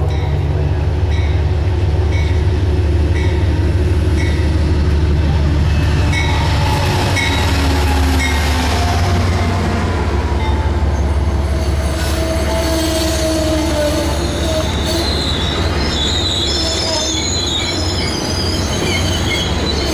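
Amtrak train led by a P32AC-DM diesel locomotive pulling into the station. The locomotive's engine rumbles past in the first seven seconds or so. Then the stainless-steel passenger coaches roll by, with high wheel and brake squeal setting in about halfway through as the train slows.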